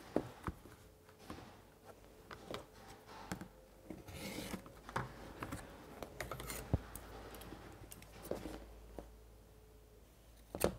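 Clicks, taps and rubbing from hands working denim and sewing tools on a cutting mat: a clear acrylic ruler lifted and set down, fabric shifted, and dressmaking shears cutting the thick denim near the end.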